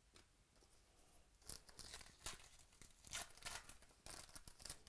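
Foil wrapper of a baseball card pack torn open by hand and crinkling, in a quick run of crackling rips starting about a second and a half in.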